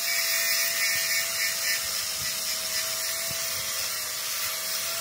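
Hand-held electric angle grinder running, a steady whine over a high hiss.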